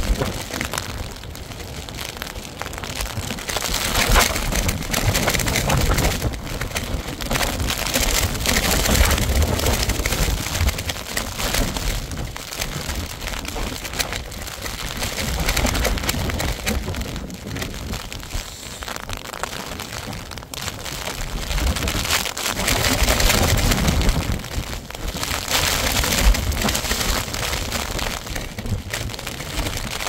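Storm wind gusting hard against the microphone, rumbling and swelling then easing every few seconds, over a steady rushing hiss.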